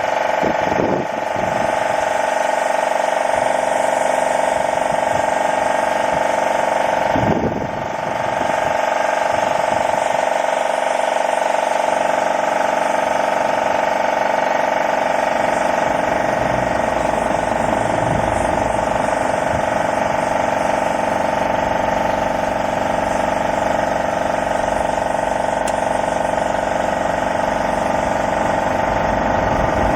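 Gentilin C330/24 piston air compressor running steadily, with air hissing through a 3M PPS 2.0 HVLP spray gun as paint is sprayed. There is a brief dip about seven seconds in.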